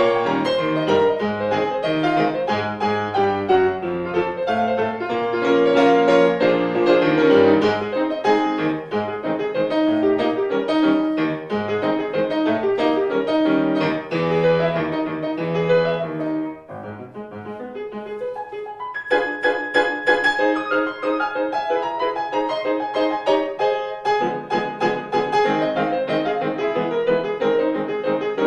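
Background piano music with many quick notes; it drops to a softer, quieter passage a little past halfway, then picks up again with brighter notes.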